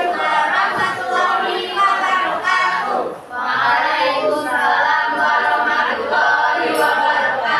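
A group of young voices singing together.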